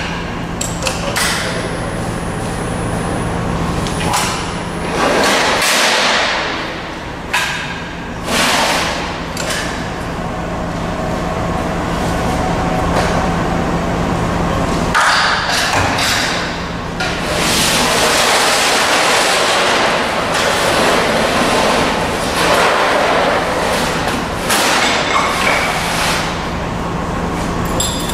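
Cidan Futura Plus 30 sheet-metal folding machine running with a steady low hum as it forms a compressor housing. Repeated metallic thuds, pings and clanks of the steel sheet come over the hum, with several longer surges of noisy sound as the sheet is bent and handled.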